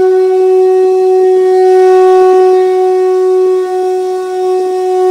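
A conch shell (shankh) blown in one long, steady note.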